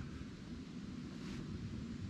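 Low, steady wind rumble on the microphone over quiet woodland ambience, with one faint short rustle a little past the middle.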